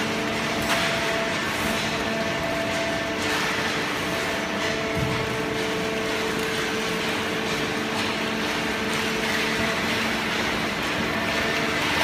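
Fully automatic hydraulic horizontal waste-paper baler and its feed conveyor running: a steady machine hum with several held tones over an even noise.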